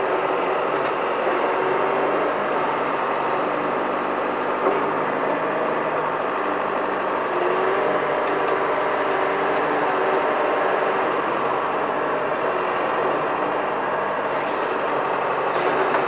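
John Deere 410 backhoe's diesel engine running steadily under load while the hydraulics work the boom and bucket digging a trench, the pitch rising and falling slightly as the controls are worked. A short knock about four and a half seconds in.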